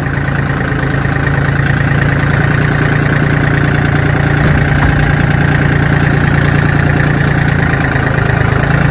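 John Deere 770 compact tractor's diesel engine running steadily at a constant speed while the tractor works with pallet forks.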